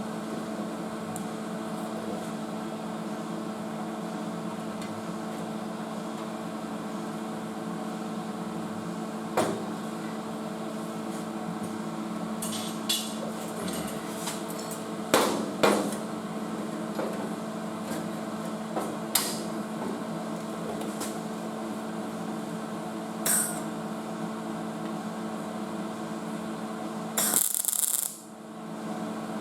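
Occasional sharp knocks and taps on sheet metal, a few seconds apart, with two close together about halfway through, over a steady shop hum. A short hissing burst comes near the end.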